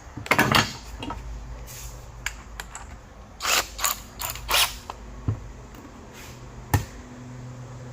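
Hand tools and hard plastic parts being handled: a few irregular clicks and short scrapes, over a steady low hum.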